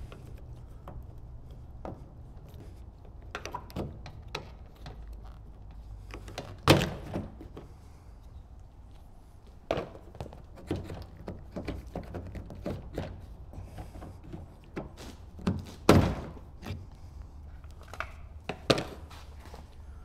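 Scattered clicks and knocks of a car's exterior door handle and its plastic parts being pried with a screwdriver and pulled free by hand. The sharpest knocks come about seven seconds in and again about sixteen seconds in.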